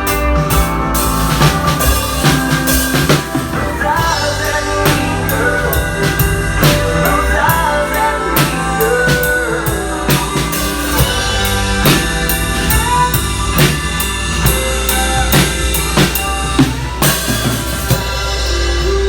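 Instrumental band passage of a country song, without vocals: a drum kit keeps a steady beat on snare and bass drum under a bass line, while a lead melody plays sliding, bending notes.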